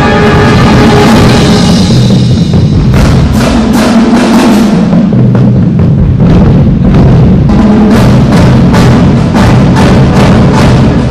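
High school marching band playing loudly, its drums prominent: a held brass chord gives way to a steady pattern of drum strikes over low held notes.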